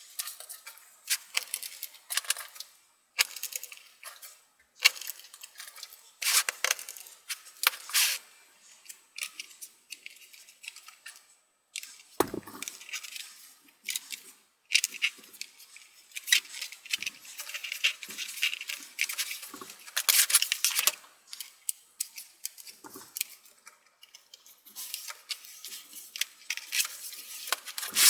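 Small plastic and metal laptop parts and screws being handled and fitted as a laptop is reassembled: irregular clicks, taps and scrapes, with one duller thump about halfway through.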